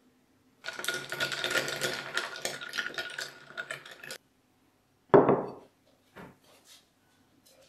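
A metal spoon stirring a matcha latte in a tall glass, clinking rapidly against the glass for a few seconds before stopping suddenly. Then a single loud knock, followed by a couple of faint taps.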